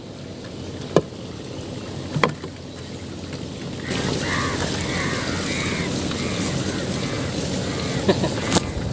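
Fishing net being hauled by hand into a small boat, with a few sharp knocks. From about four seconds in, crows caw repeatedly.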